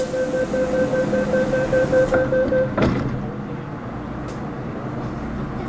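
MTR Metro Cammell M-Train door-closing warning: a rapid beeping tone that stops a little under three seconds in, when the sliding doors close with a single knock. The train then stands with a steady low hum.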